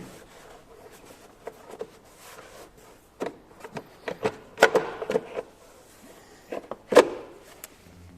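Irregular clicks, rattles and knocks of parts and tools being handled, with two sharper knocks about five and seven seconds in.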